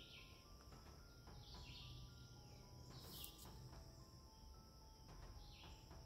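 Faint woodland ambience: a steady high insect drone, with short bird calls every second or two.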